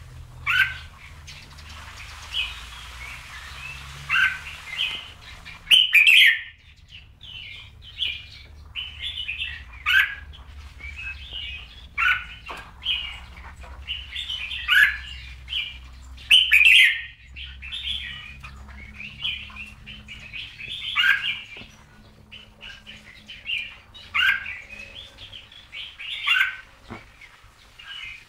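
Red-whiskered bulbul singing: short, bright whistled phrases repeated every second or two.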